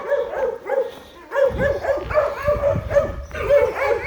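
Dog yipping and barking in quick repeated high calls, several a second, with a low rumble coming in about a second and a half in.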